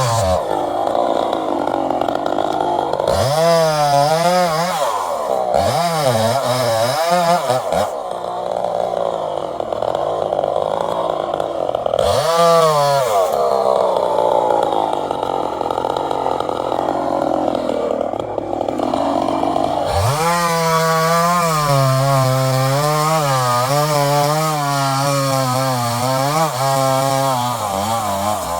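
Chainsaw engine revving up and down in several short bursts, then held at high speed with a wavering pitch for the last several seconds.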